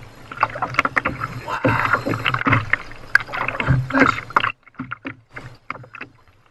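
Spinning reel being cranked during a fight with a hooked bonito, with irregular clicks and knocks of tackle against the kayak and water splashing at the hull. About four and a half seconds in it goes much quieter, leaving only scattered clicks.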